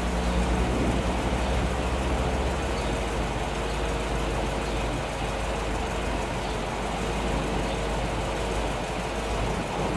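A vehicle engine idling steadily, a low even hum with a faint steady tone above it.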